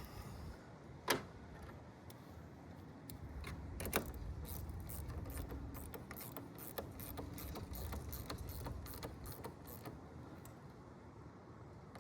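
Wrench tightening the clamp bolt of a new battery cable end on the battery post: a couple of sharp metallic clicks, then a long run of quick clicks.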